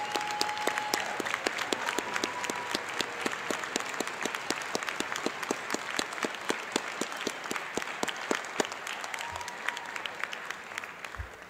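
Audience applauding, with clear, evenly paced hand claps close to the microphone over the crowd's clapping, fading out near the end.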